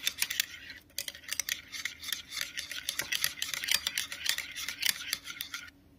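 Spoon stirring and scraping against a small glass bowl in quick strokes, mixing instant coffee powder with a little milk into a paste. The clinking pauses briefly about a second in and stops near the end.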